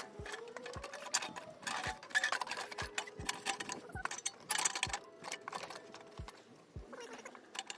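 Background music with a regular bass-drum beat, with scattered clicks over it.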